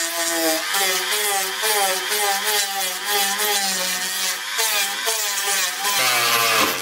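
Rotary tool spinning a wire brush against a corroded diecast metal car body: the motor's whine wavers in pitch as the brush is pressed and eased, over a steady scratchy hiss from the bristles. It drops in pitch near the end.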